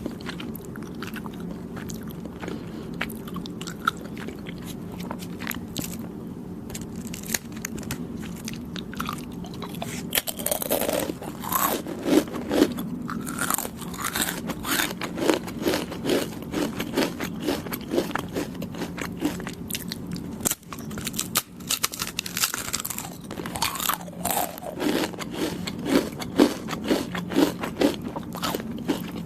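Close-miked chewing and biting of soft, chewy Thai desserts (khanom Thai): many short wet mouth clicks, growing denser and louder about a third of the way in, over a steady low hum.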